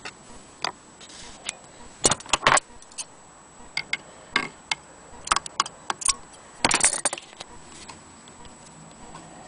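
Irregular metallic clicks and clatter from an antique Victorian hand-crank sewing machine being handled. The loudest clusters come about two seconds in and again around seven seconds, with scattered single clicks between them.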